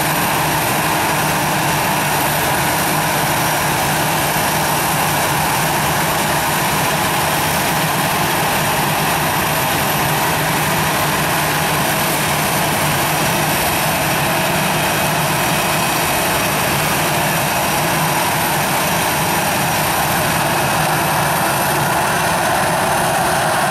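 Airbus A319's twin jet engines running steadily at taxi power: a constant loud rush with a steady whine.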